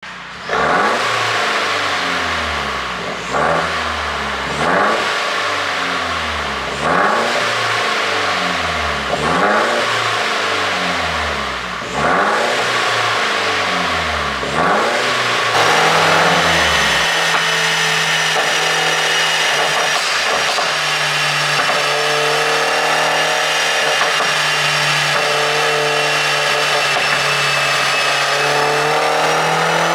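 Mercedes-Benz E350 4Matic engine and exhaust, tuned for pops, revved in about eight quick blips, each climbing and falling back with sharp pops as the revs drop. About halfway through it settles into a steady run.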